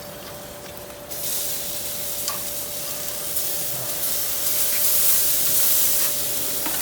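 Steady sizzling hiss from the hot Kamado Joe Big Joe ceramic grill as the smoked pork loin is pulled off, starting suddenly about a second in.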